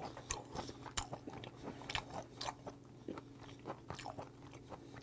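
A person chewing raw yellowtail sashimi close to the microphone: irregular small mouth clicks and smacks, about three or four a second.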